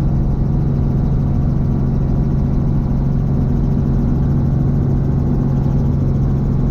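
Light helicopter's engine and rotor heard from inside the cabin: a loud, steady drone with one strong low hum, as the helicopter climbs away just after takeoff.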